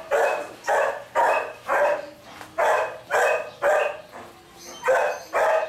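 A dog barking about nine times, in short runs of two or three barks.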